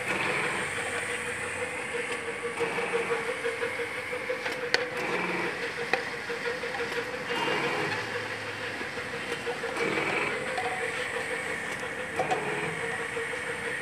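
Auger powder filling machine running: a steady mechanical hum with a constant tone. The noise swells about every two to three seconds, and there are a few sharp clicks.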